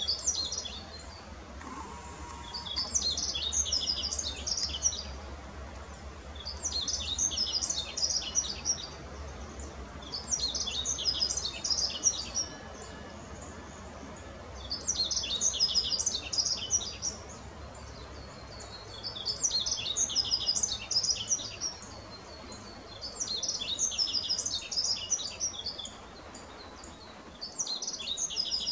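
Male yellow-throated bunting singing to attract a mate: short, high, twittering song phrases of about two seconds, repeated roughly every four seconds.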